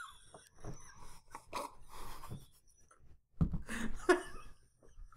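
Stifled male laughter: short breathy, panting laughs in an irregular string, with a louder burst of laughter about three and a half seconds in.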